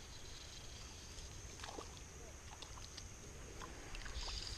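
Quiet pond-bank ambience: a steady faint high hum, a few soft clicks and short falling chirps, then a brief rustle about four seconds in as an arm brushes against the body-worn camera.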